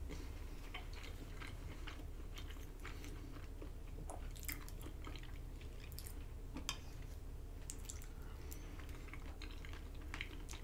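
Faint, close-miked chewing of soft, cheesy pasta, with scattered small wet mouth clicks. Now and then a fork clinks against the glass dish.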